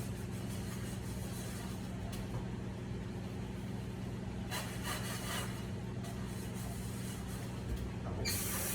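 Steady low hum with faint rubbing and handling sounds at a kitchen sink. Near the end a faucet is turned on and water starts running into the sink.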